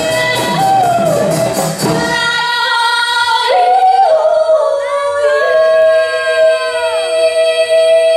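Women's voices singing in harmony with acoustic guitar and djembe drums; about two seconds in the drums stop and the voices hold a long closing note together, with a falling slide near the end, finishing the song.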